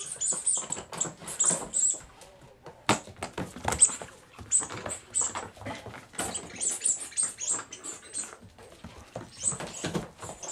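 A puppy's claws clicking and skittering on a hard kitchen floor as it dashes and scrambles around, in quick irregular runs of patter with a few louder knocks.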